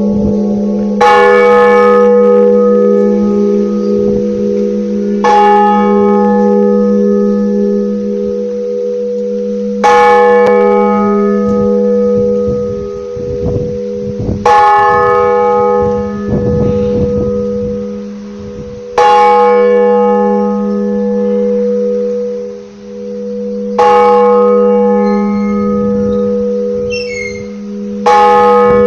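A large church bell struck seven times at an even, slow pace, about every four and a half seconds. Each stroke rings on with a long, layered hum that carries into the next stroke.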